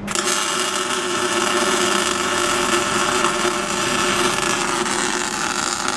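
Electric arc welder welding, a steady loud crackling hiss of the arc.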